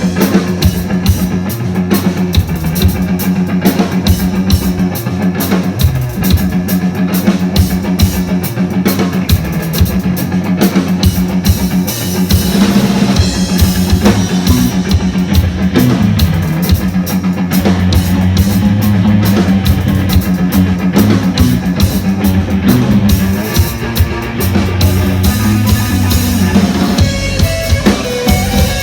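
A rock band playing live: a drum kit with rapid, even hits over a sustained guitar sound.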